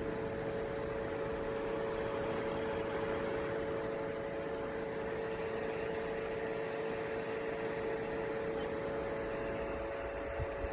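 Evaporative cooler tower fan running: a steady rush of air over a constant motor hum.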